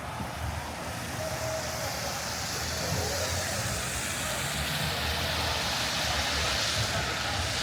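Car driving past on wet pavement, its tyres hissing over the low hum of the engine; the hiss swells slowly and is loudest about two-thirds of the way through as the car comes closest.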